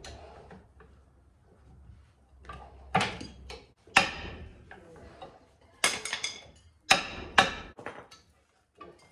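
Hammer blows on the steel front brake drum of a 1970 International Scout, about five hard, irregularly spaced strikes that each leave a metallic ring, as he tries to knock the stuck drum off the hub.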